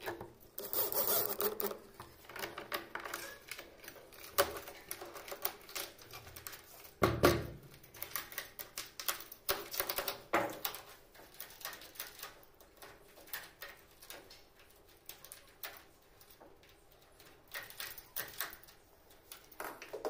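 Irregular metallic clicks and knocks from a rim door lock being fitted to a wooden door and worked: screws driven home, bolts, knobs and key clicking, with one heavier knock about seven seconds in.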